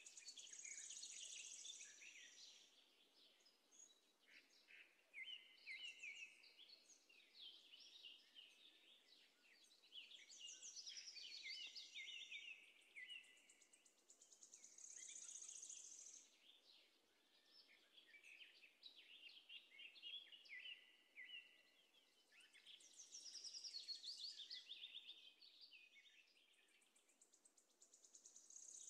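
Faint birdsong: bursts of rapid chirps and trills recurring every few seconds over a soft background hiss.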